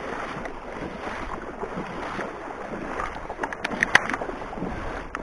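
A person wading through shallow marsh water, with continuous sloshing and splashing. A quick run of sharp clicks or splashes about three and a half to four seconds in is the loudest part.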